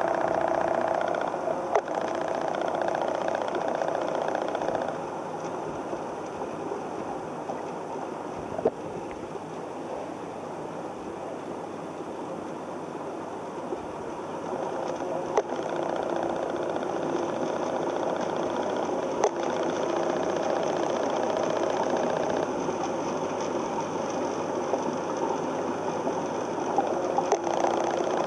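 A steady mechanical hum, like a small motor running, a little quieter for a stretch in the middle, with a few faint clicks.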